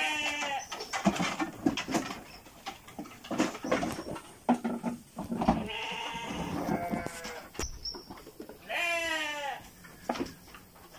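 Goats in a wooden pen bleating several times, each call a quavering, wavering bleat, with scattered knocks between the calls.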